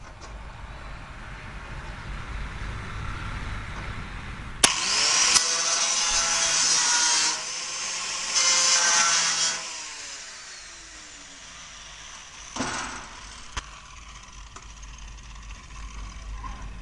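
Angle grinder switched on about five seconds in with a rising whine, grinding in two passes of about two and a half seconds and one second. It then spins down with a falling whine. A single knock follows a few seconds later.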